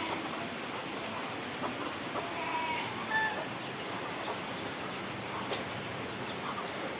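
Steady rain noise, with a few short calls from village poultry a couple of seconds in.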